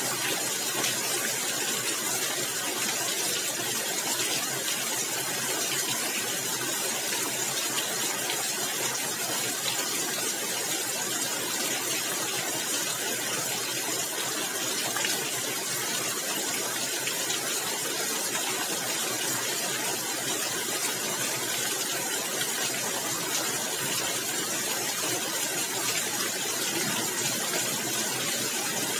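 Steady rain pattering on a tiled roof, a dense, even patter that holds at the same level throughout.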